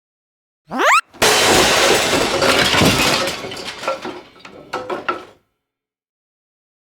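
Cartoon slip-and-crash sound effect: a quick rising whistle, a split-second gap, then a loud crash of breaking glass and clattering debris that dies away in scattered clinks.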